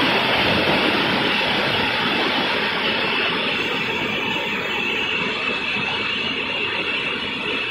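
Mountain river rushing over stones and rapids: a steady, even rush of water that grows slightly quieter.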